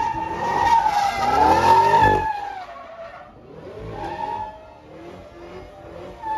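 Car tyres squealing with a long wavering screech while the engine revs up, loudest in the first two seconds, then dying down and briefly returning.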